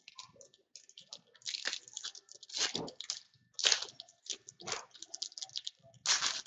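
A trading-card pack wrapper being torn open and crinkled by hand. It makes a run of crackling rustles with louder crunches about once a second.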